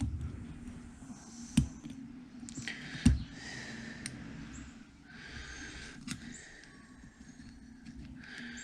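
Small hand tools and metal parts clicking and knocking during hand work on a turbocharger housing, with two sharper knocks about one and a half and three seconds in, over a steady low hum.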